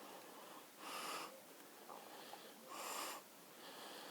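Close, heavy breathing through the nose. Soft hissing inhales and exhales alternate, about one full breath every two seconds.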